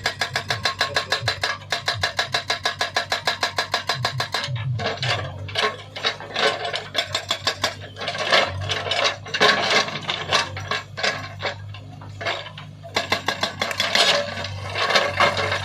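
Hydraulic breaker on a JCB 3DX backhoe loader hammering in a rapid, even rhythm of about ten blows a second. About four seconds in the steady hammering stops and gives way to irregular metallic clanking and rattling, with the diesel engine running underneath.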